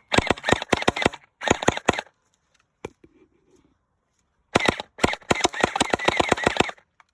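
Electric gel ball blaster firing on full auto in rapid bursts of sharp clacking shots, about nine a second. Two short bursts come early, then a single shot, then a longer burst of about two seconds.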